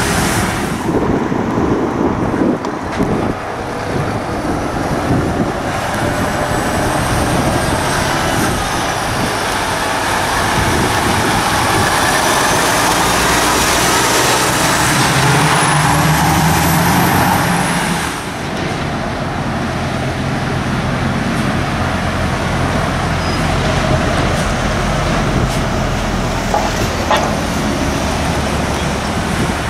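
Heavy articulated lorries with diesel engines driving past one after another, their engines and tyres running steadily. A high whine rises and falls midway as one lorry goes by.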